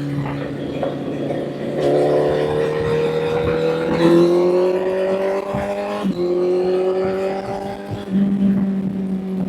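Honda CBR1000 inline-four motorcycle engine accelerating under load, its pitch climbing steadily through a gear, dropping sharply at an upshift about six seconds in, then climbing again.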